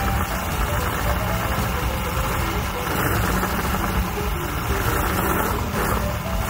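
Mercury outboard engine running steadily at idle while Sea Foam is sprayed into its carburetors to burn off carbon deposits.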